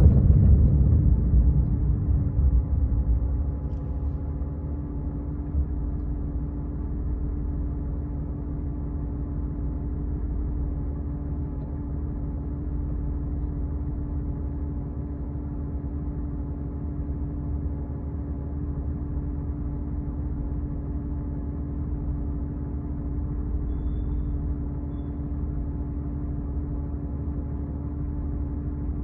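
Porsche 911 (997) flat-six engine running steadily. Its sound falls away over the first few seconds, then holds at an even level.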